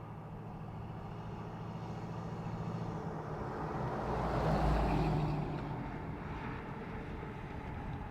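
1985 Chevrolet K10 Outdoorsman pickup's 350 V8 crate engine running as the truck drives, swelling to its loudest about four and a half seconds in and then easing off.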